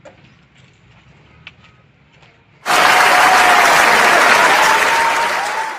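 A large audience applauding, with a thin wavering tone over the clapping. It starts suddenly a little under halfway in after faint background with a few light ticks, and cuts off abruptly at the end.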